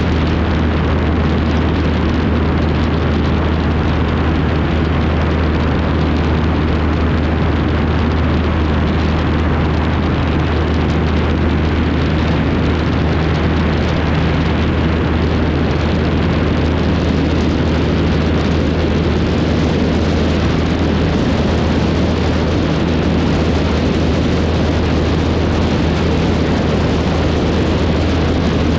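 Cessna 152's four-cylinder piston engine running steadily, heard as a constant low drone under a loud, even rush of wind over a wing-mounted action-camera microphone.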